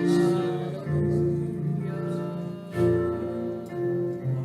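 Slow worship music: held organ-like chords over bass notes, the chord changing about a second in and again just before three seconds.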